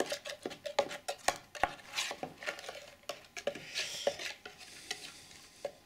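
Metal spatula working freshly poured wet plaster in a wooden mould box: irregular light clicks and scrapes. The plaster is being jiggled so that trapped air can escape.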